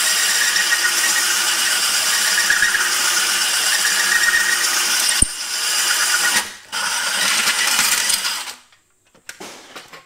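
Diamond-tipped hole saw in a drill grinding through porcelain tile at low speed, the bit kept wet by a water-soaked sponge: a steady, harsh grinding with a sharp click a little after five seconds and a brief dip near six and a half seconds. The grinding stops about eight and a half seconds in, followed by a few short knocks.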